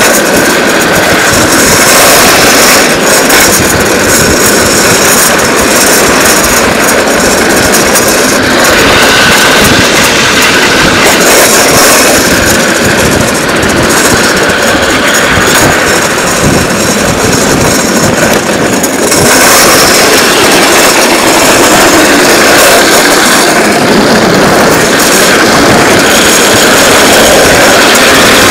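Loud, steady rush of wind over the microphone mixed with the rumble of a drift trike's hard plastic-sleeved rear wheels rolling and sliding on asphalt at speed downhill.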